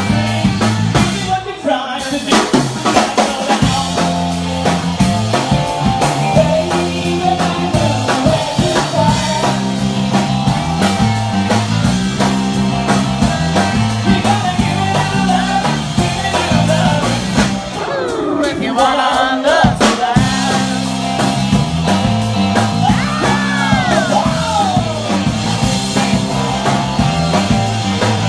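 Live rock band playing: electric guitars, bass guitar and drum kit, with gliding, bending lead lines about two-thirds of the way through.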